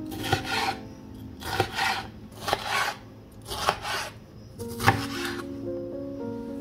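Rhythmic scraping or rasping strokes, about one a second, each beginning with a sharp click, over soft background music.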